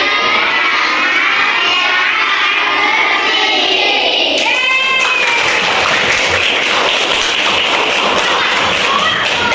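A group of children singing together, then shouting and cheering from about halfway through.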